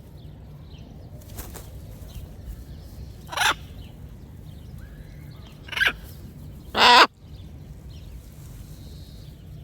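Parrot giving three loud squawks, the third the longest and loudest, with faint chirps between them.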